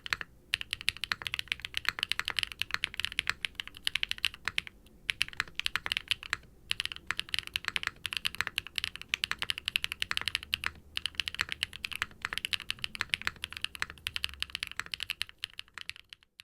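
Fast typing on a QK60 R3 60% mechanical keyboard with Wingtree BM-11 tactile switches (polycarbonate housings, UPE stems) and double-shot ABS keycaps: a steady run of deep, clacky keystrokes, broken by a few short pauses.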